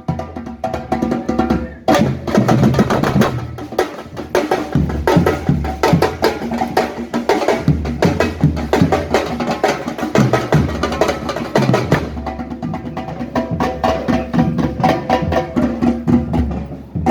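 Music played on drums and percussion, with a fast run of strokes and sustained melodic tones over the beat.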